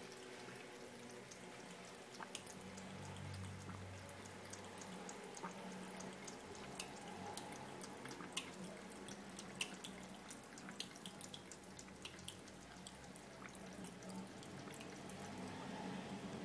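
Thin stream of water trickling from a bathroom sink tap into the basin, faint and steady, with many small irregular clicks over it.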